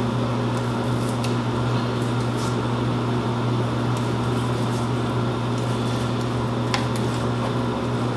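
Kitchen scissors snipping a food package open, a few faint sharp snips, over a steady low hum.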